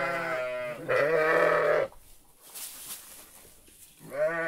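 Sheep bleating: two long, wavering bleats one right after the other, then a shorter bleat near the end.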